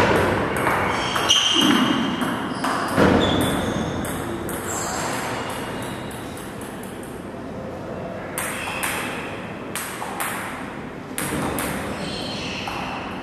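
Table tennis ball clicking off bats and the table in a quick series of hits during a rally, then single scattered bounces a few seconds later.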